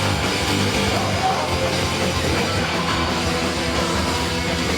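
Loud punk rock: a band playing with distorted electric guitar, at a steady, dense level.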